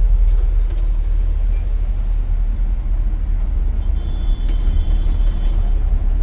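Open-top double-decker tour bus on the move, its engine and road noise a steady low rumble heard from on board. A faint thin squeal comes in for about a second around four seconds in.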